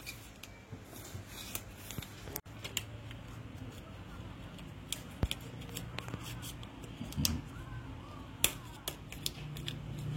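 A thin plastic card slicing through the adhesive tape that holds an iMac's display, giving scattered light clicks and short scrapes of plastic.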